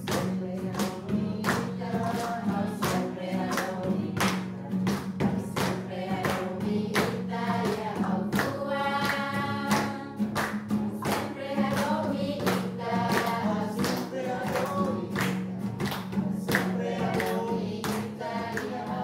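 Music with group singing over a steady beat of about two strokes a second.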